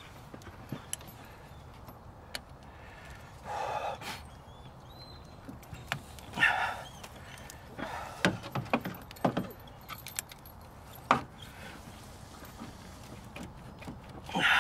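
Scattered light clicks and metallic clinks as a spring hose clamp and a cable-operated hose clamp tool are worked onto a rubber radiator hose, with a few short rustles.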